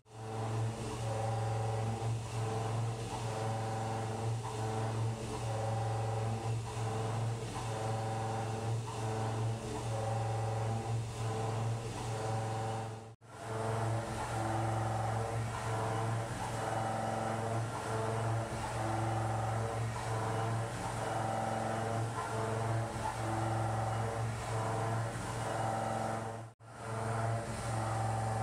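A 2-inch, five-flute high-feed shell mill roughing 4140 pre-hard steel at 1330 RPM: a steady low drone with higher steady tones over it. The sound drops out briefly about halfway through and again near the end.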